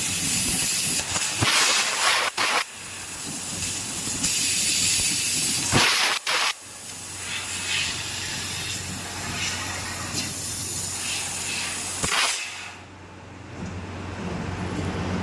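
Fiber laser cutting machine cutting sheet metal: a steady hiss of the cutting head, broken off briefly a few times, over a low steady hum. The hiss weakens about 13 seconds in, then picks up again.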